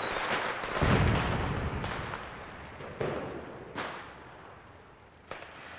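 Fireworks going off: a deep boom about a second in, then several sharp bangs over a crackling hiss that gradually fades away.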